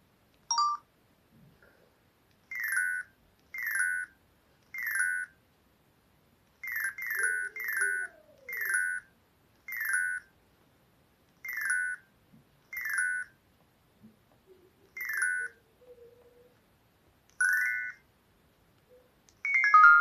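Newgen C800 mobile phone's key tones: about a dozen short electronic beeps, each a little chord of tones, coming at uneven intervals as the navigation key is pressed to move through the menus. The last one, near the end, is louder.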